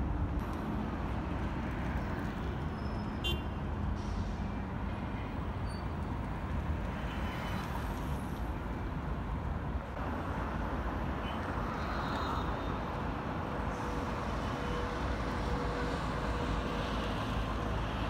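Steady road-vehicle noise: an even, low rumble with no distinct events, and a faint steady tone in the last few seconds.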